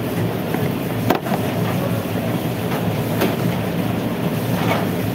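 Commercial kitchen extractor hood fan running steadily, with one sharp knock about a second in.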